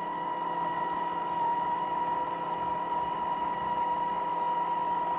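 A WLtoys A959 RC buggy's brushed electric motor running while fully submerged in water, a steady high whine that grows slightly louder in the first second or two.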